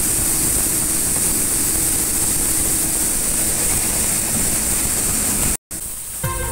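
NHT groundnut and chickpea thresher running steadily, a constant whooshing noise with a faint low hum. The sound cuts out for a moment near the end, and music begins.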